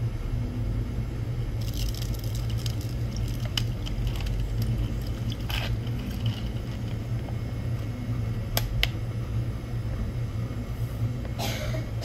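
Watermelon ade squeezed from a spouted pouch and poured over ice in a plastic cup: squishing liquid with scattered crackles and clicks from the ice, over a steady low rumble.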